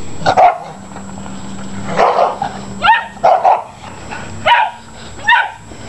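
Spitz-type dogs barking during play: a string of about seven short, high barks at uneven intervals, a few in quick succession.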